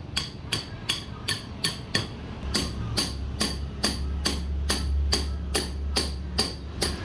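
Steady, rhythmic hammer blows on metal, about two and a half strikes a second, each blow ringing briefly.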